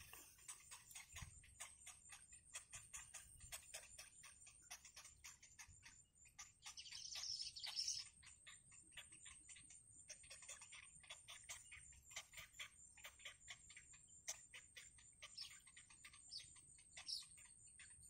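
Faint, rapid ticking calls of bittern chicks begging in the nest, about four or five ticks a second, with a louder burst of high chittering about seven seconds in and a few short falling high notes near the end.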